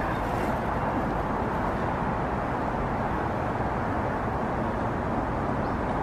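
Steady drone of distant city traffic, an even rumbling hiss with no distinct events.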